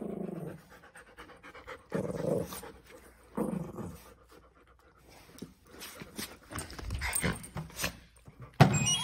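Dogs panting during play, with a few short bursts of dog sound, then a single sharp knock near the end.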